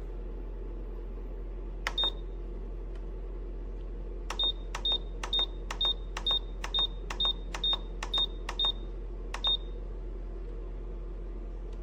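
Nuwave Bravo Pro air fryer oven's control panel beeping as its settings are keyed in: each button press gives a click and a short high beep. There is one beep, then a run of about eleven at roughly two a second, over a steady low hum.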